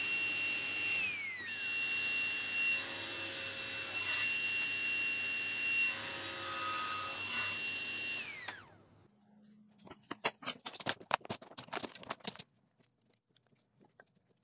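SawStop table saw running and cutting wood, a steady high whine that falls away in pitch about two-thirds of the way through. Then a quick run of sharp wooden clacks.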